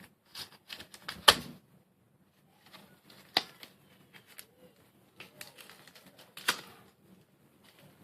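Foil booster pack wrapper crinkling and crackling as it is worked open by hand, in scattered sharp clicks and short crackles, the loudest about a second in.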